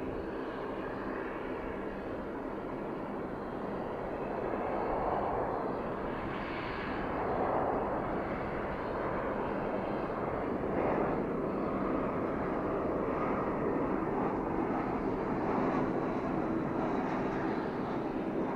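Jet engine noise from an Airbus A320-232 on landing approach, its IAE V2500 turbofans giving a steady rushing sound with a low hum under it. It slowly gets louder.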